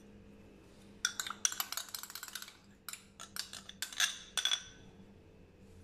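Glass on glass: a small glass dish clinking against the rim of a glass mixing bowl as an egg yolk is tipped in. A quick run of light clinks starts about a second in, followed by several separate taps, over a faint steady hum.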